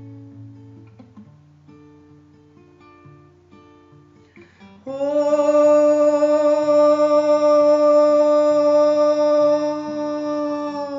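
Song passage: soft picked acoustic guitar notes, then about five seconds in a loud long held note that sounds over the guitar and eases off near the end.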